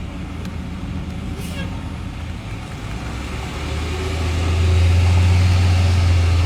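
Heavy vehicle's diesel engine running with a low rumble that swells much louder about four seconds in, as the wrecker and stuck bus are worked free.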